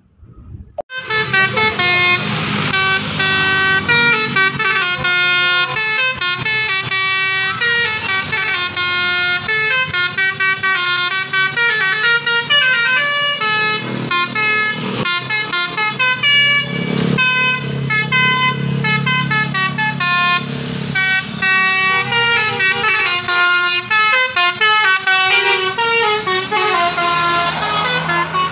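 Bus 'telolet' Basuri multi-tone melody air horn playing a fast tune of quickly changing notes, starting sharply about a second in and sounding continuously after that.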